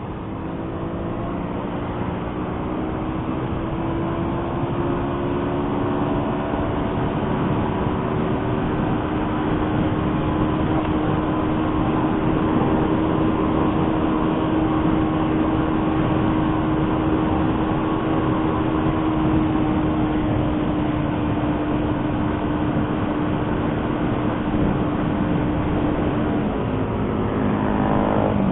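Motorcycle engine under way, rising in pitch as it speeds up and then holding a steady drone at cruising speed over road and wind noise. Its pitch drops near the end as it slows.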